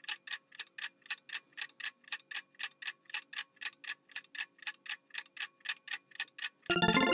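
Countdown clock sound effect ticking steadily, about four ticks a second, giving time to answer a quiz question. Near the end it gives way to a bright chiming jingle.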